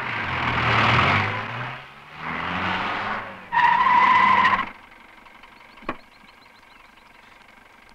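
Jeep driving up and stopping, its engine noise rising in pitch. About three and a half seconds in, its horn gives one steady honk lasting about a second. A single sharp click follows about a second later.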